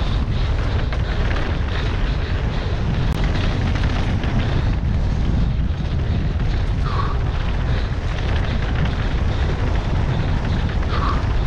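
Mountain bike descending a rough dirt trail at speed. Wind buffets the microphone, the tyres rumble and the bike rattles continuously over the bumps, with a brief squeak about seven and again about eleven seconds in.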